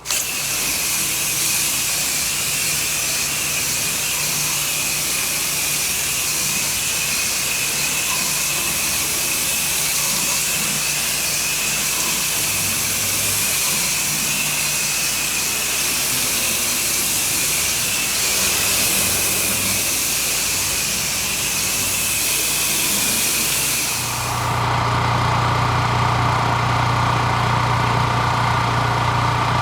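Pressure washer spraying: a steady loud hiss of the water jet over the machine's running engine. Near the end the spray hiss stops and the engine is heard alone, running steadily.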